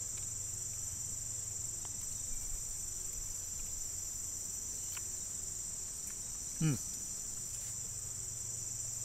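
Steady high-pitched chorus of insects droning without a break. About two-thirds of the way in, a man gives one short falling 'mm' while chewing.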